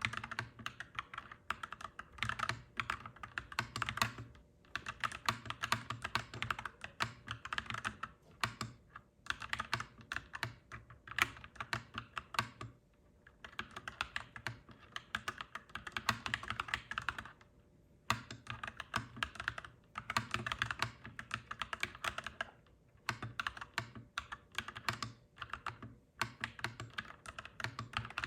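Clacky mechanical keyboard being typed on in fast runs of keystrokes, broken by short pauses every few seconds.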